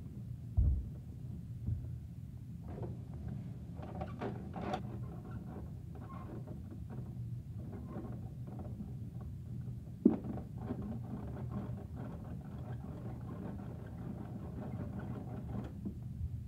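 Plastic Bruder toy garbage truck being handled and pushed on a carpet: a low thump about half a second in, then scattered light plastic clicks and rattles, with one sharper click about ten seconds in.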